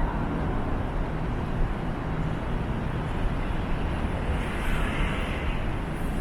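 Steady city street ambience dominated by the rumble of traffic.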